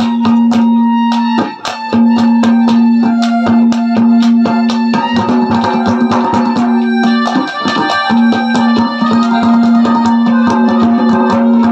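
Instrumental interlude of Haryanvi ragni accompaniment: a keyboard melody over a held drone note, with fast, steady drumming.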